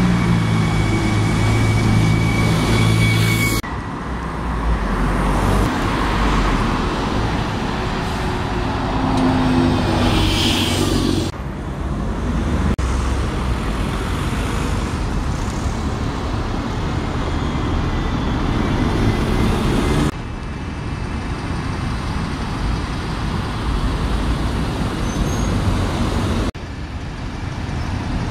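Single-deck diesel buses, Alexander Dennis Enviro200 MMCs among them, running past and pulling in with engine drone over street traffic. The sound changes abruptly several times as separate roadside clips are cut together, and an engine note rises for a couple of seconds about ten seconds in.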